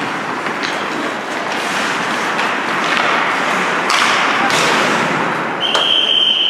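Ice hockey practice on a rink: skate blades scraping the ice and a steady wash of rink noise, broken by several sharp knocks of sticks and pucks. Near the end a whistle blows one steady blast of about a second and a half.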